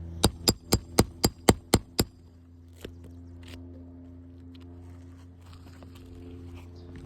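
A roofing hammer strikes a nail-removal tool to free the last nail under a brittle three-tab shingle. It lands eight quick, sharp blows, about four a second, over two seconds, then one lighter knock a second later.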